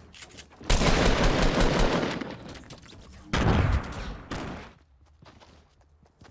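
Two hunting rifle shots, about two and a half seconds apart, each followed by a long echo that dies away.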